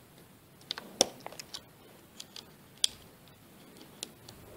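Irregular small sharp clicks and taps of fingers fitting the antenna cable connectors onto a laptop Wi-Fi card, the loudest about a second in and another near three seconds.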